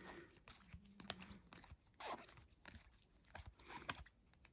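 Faint light clicks and brief swishes of glossy Topps Chrome trading cards being flicked one by one through a stack held in the hands.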